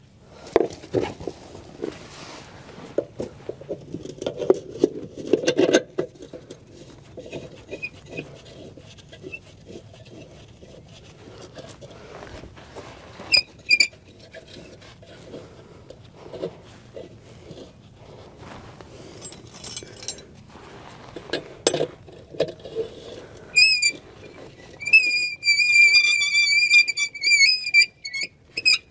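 Metal tools and bolts clinking and knocking against a semi truck's suspension bracket as a new air bag is bolted in. Near the end a loud, high, slightly wavering squeal runs for a few seconds.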